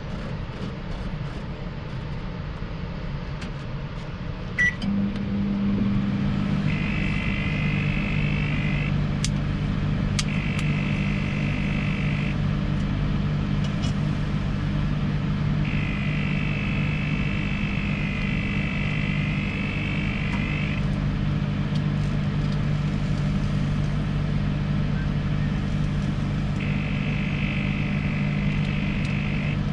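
Microwave oven started with a short beep and click about five seconds in, then running with its steady low hum. A higher wavering tone comes and goes four times over it, with a few sharp clicks or pops.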